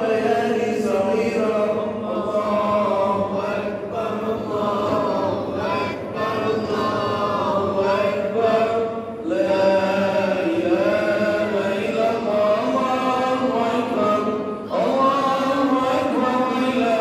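Unaccompanied male voice chanting an Islamic religious song (nasheed), with long, ornamented held notes sung in phrases, with short breaks about 9 and 15 seconds in.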